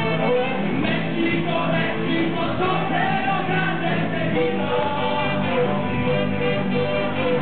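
A live band playing upbeat rock music on guitars, with a singing voice over it.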